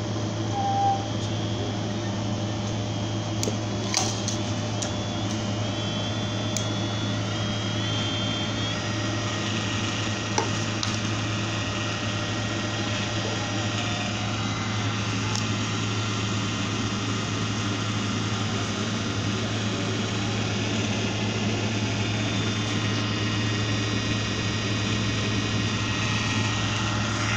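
Emerson Control Techniques HD servo motor running with its shaft spinning: a steady hum under a high whine. The whine's pitch steps up several times between about five and nine seconds in, then holds steady. A couple of sharp clicks come about four and ten seconds in.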